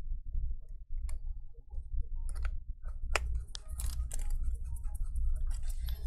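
Irregular light clicks and taps of a small screwdriver and tiny screws against a MacBook Air's battery and frame as the battery screws are put back in, over a steady low rumble.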